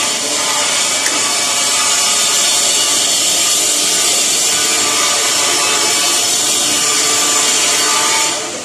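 Electric welding arc running continuously with a steady, harsh frying hiss, then cutting off abruptly about eight seconds in as the arc is broken.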